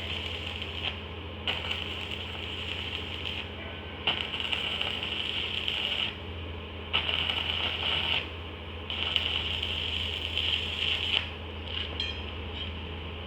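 A machine's motor hums steadily while metal clatters and scrapes in repeated stretches of a second or two, with sharp clinks among them.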